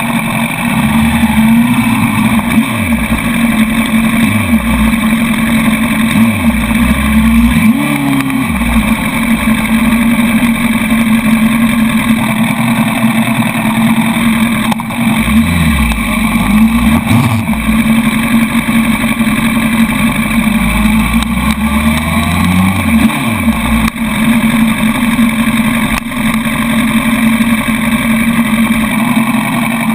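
Honda sportbike engine running at low speed and idle, heard from a camera mounted on the bike, with a steady drone and a few brief rises and falls in revs.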